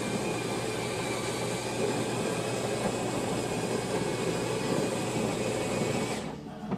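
Built-in coffee machine's grinder grinding beans with a steady motor whine, stopping about six seconds in.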